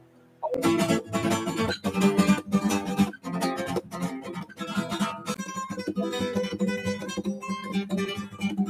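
Acoustic guitar played in a Spanish rumba-flamenco style, fast repeated strummed chords starting about half a second in.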